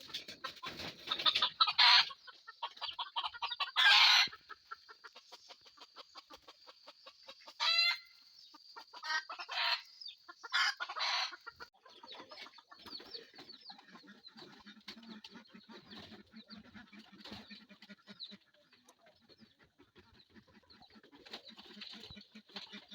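Hill chickens clucking, with several loud calls in the first half, one near the middle rising in pitch. Softer, rapid clucking carries on through the second half.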